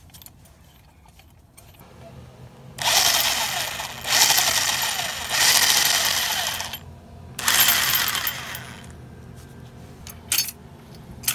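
Power drill with a socket spinning the threaded stud into a strut spring compressor's frame. It runs in two bursts, a long one of about four seconds and a shorter one of about a second and a half, and a few metal clicks follow near the end.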